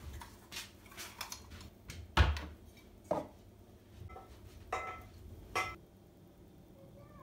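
Cookware being handled on a kitchen counter: a run of separate clinks and knocks, with one heavier thump about two seconds in.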